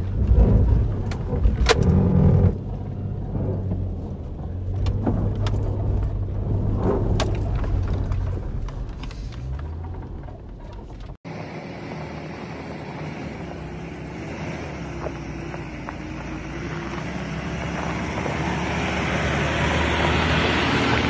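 Lifted Subaru Outback's engine running as it drives a rough dirt trail, with scattered knocks and rattles from the wheels and body. About halfway through the sound cuts off abruptly and background music takes over.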